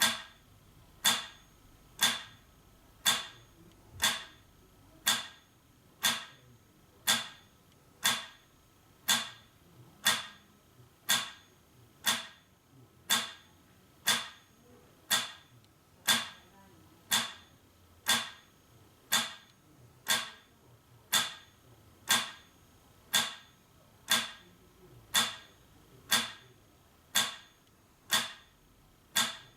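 Metronome ticking at 60 beats per minute: one sharp click every second, evenly spaced.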